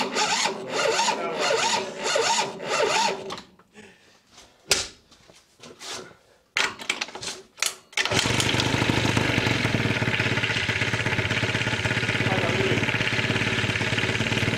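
Vespa ET2's small two-stroke engine being cranked over on its first start after a new cylinder and piston: a few seconds of cranking, then several short tries with gaps between them, until about eight seconds in it catches and keeps running steadily.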